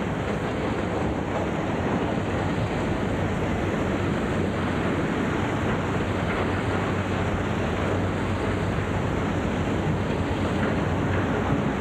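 Steady wash of sea surf and wind, an even rushing noise that stays the same throughout.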